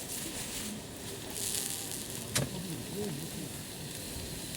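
Wood campfire crackling with a steady hiss, and one sharp pop about halfway through.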